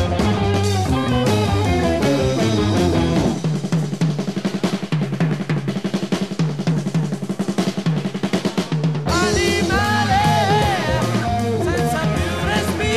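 Early-1970s Italian progressive rock band playing an instrumental passage. About three seconds in, the bass and melody drop away to a drum-kit break of quick strikes. At about nine seconds the full band comes back in with wavering lead lines.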